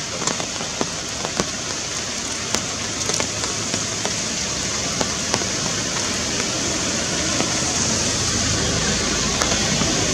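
Steady dense hiss of outdoor forest ambience, brightest in the high range, with scattered sharp ticks. A low rumble builds about eight seconds in.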